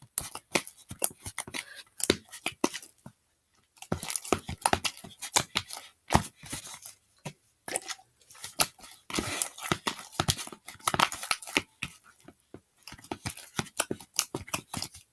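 Slime being kneaded and squeezed by hand in a plastic bowl after activation with borax. It makes a quick, irregular run of sticky clicks and crackles, with short pauses, the longest about three seconds in.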